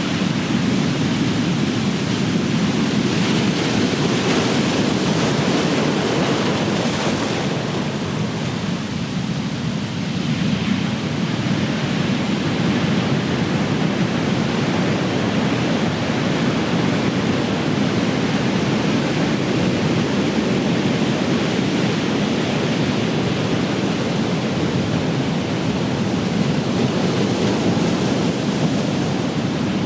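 Big ocean waves breaking and crashing on the shore in a continuous wash of surf, swelling and easing every several seconds.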